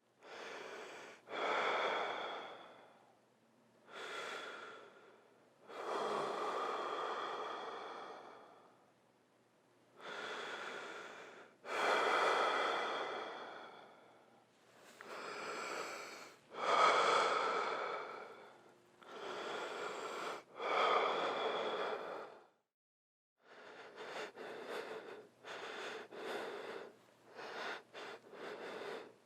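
A person breathing: slow, deep breaths in and out, each lasting a second or two. After a brief pause about three-quarters of the way through, they turn to quicker, shorter breaths.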